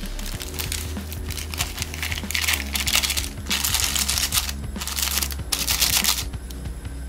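A small foil ramen seasoning packet crinkling as it is shaken over the pot, in about four short spells in the second half.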